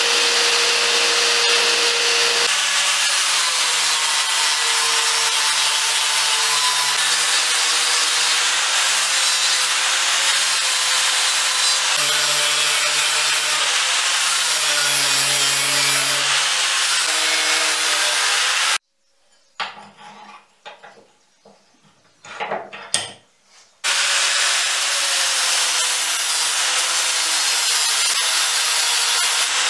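Handheld power tools grinding an O1 steel knife blank: a belt file for the first couple of seconds, then an angle grinder, its motor pitch dipping and recovering as the disc bears on the steel. The grinding stops abruptly about two-thirds of the way through, leaving a few seconds of near quiet with small clicks, then starts again.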